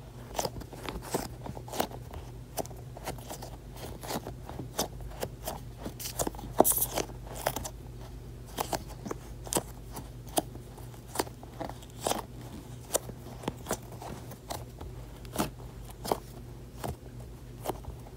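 Fingers squeezing and pressing a dried-out, dough-filled squishy toy close to the microphone, giving an irregular run of small crackles and crunching clicks, a few louder ones about six to seven seconds in.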